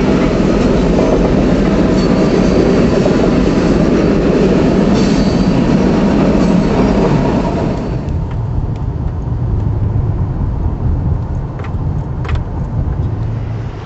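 A train rolling past on the rails: loud, dense wheel and car noise with clickety-clack, which drops to a quieter low rumble about eight seconds in, with a few sharp clicks.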